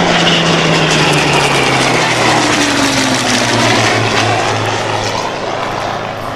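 Hawker Hurricane and Supermarine Spitfire fighters' piston engines running loud on a low pass, the engine note falling steadily in pitch as the aircraft go by.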